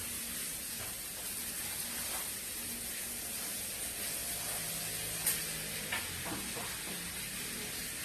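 Food frying in a pan, sizzling steadily, with a couple of light clicks of a utensil about five and six seconds in.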